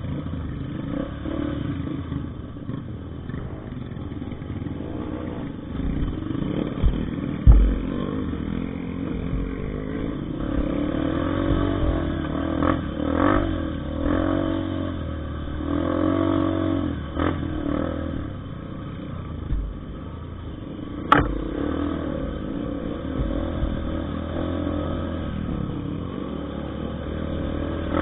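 Trail motorcycle engine revving up and down over and over, with clattering and a few sharp knocks, the loudest about 7 seconds in and another about 21 seconds in.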